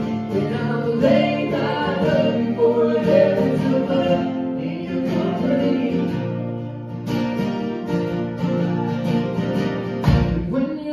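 Live band playing an acoustic folk-rock song: strummed acoustic guitars, mandolin and drums, with voices singing. A low thump comes near the end.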